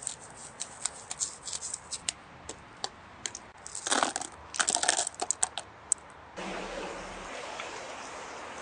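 Light clicks and crinkling of materials being handled, busiest around four to five seconds in, then a steady rush of water pouring from about six and a half seconds in.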